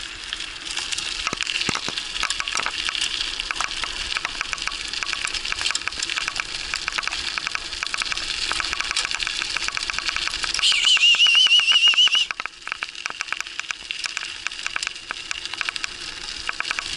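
Mountain bike rolling fast over a gravel forest road behind two running huskies: steady tyre crunch with dense crackling and rattling. About ten and a half seconds in, a high wavering squeal lasts about a second and a half and is the loudest sound, after which the rolling noise drops.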